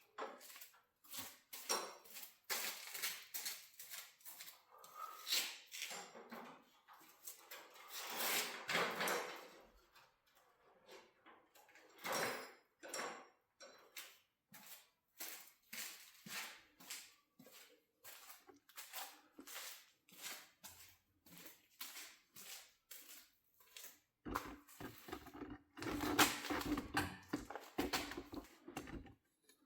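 Irregular metallic clinks, clanks and knocks of tools and garage door hardware being handled, with a denser run of knocking and rubbing about five seconds before the end.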